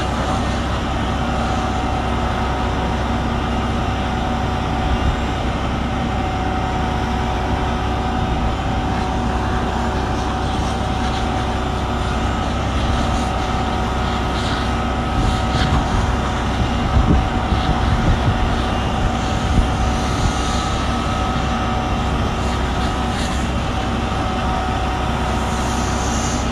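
Fire engine's motor and pump running at a steady pitch to feed the hose lines, with a constant hum over the hiss of water spraying onto the burning pickup. A few short crackles and pops come from the fire around the middle.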